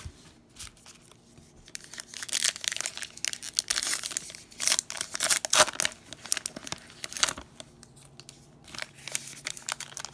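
Baseball card pack wrapper being torn open and crumpled: a run of crinkling and ripping for several seconds, then lighter rustling near the end.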